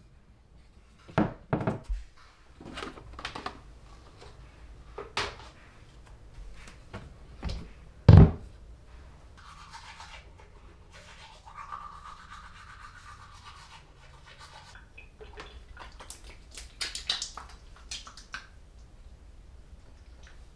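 Bathroom vanity cabinet and toiletries being handled, a series of knocks and clicks with one loud thump about eight seconds in. Then teeth are brushed with a toothbrush, a scrubbing noise lasting several seconds, followed by a few more clicks and scratches.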